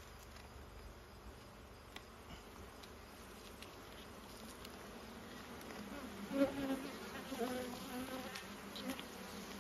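Honeybees buzzing around an open hive box. The buzz is faint at first, then grows louder, with a clearer pitched hum, from a little past halfway, as a bee-covered brood frame is lifted out.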